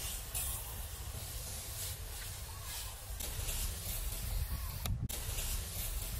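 Hand-pump garden pressure sprayer misting water, a hiss of spray that swells and fades in several stretches.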